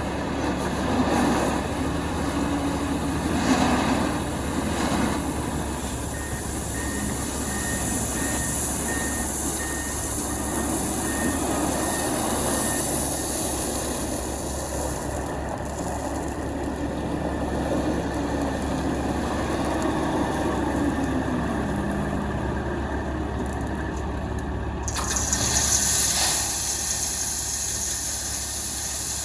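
Heavy diesel truck engines running steadily, with a faint repeated beep for several seconds in the first half. A hiss comes up suddenly near the end.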